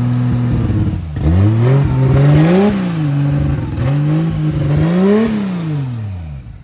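Engine of an engine-swapped Mustang being revved, running on a self-learning base-map tune: it is held at high revs, drops about a second in, then rises to a peak and falls back twice. The sound falls away sharply at the very end.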